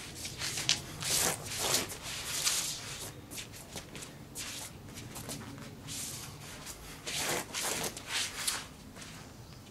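Quick footwork scuffing and stepping on stone paving slabs, mixed with short swishes of a 20-inch Cold Steel Tire Boss polypropylene bat being swung through the air. The sounds come in two flurries, the first about a second in and the second about seven seconds in.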